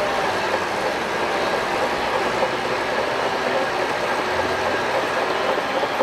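Shantui DH17 crawler bulldozer at work: a steady clatter and squeal of its steel tracks over the running engine.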